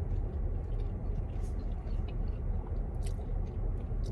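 People biting and chewing sauced chicken wings, with small scattered mouth clicks, over a steady low rumble inside a car.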